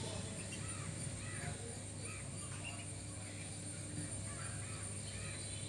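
Ducklings peeping: a run of faint, short high calls repeating every half second or so, over a steady low hum.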